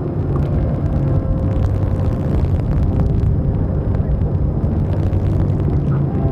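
Steady low rumble with a faint hum.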